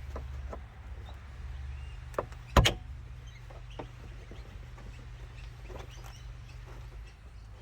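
Plastic interior trim clips of a Mercedes E250 clicking and snapping as trim is pried off, with a loud double snap about two and a half seconds in and smaller clicks throughout. A low steady hum runs underneath.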